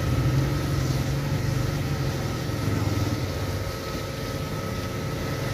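Chapli kababs deep-frying in a wide pan of hot oil, a steady sizzle, over a steady low hum.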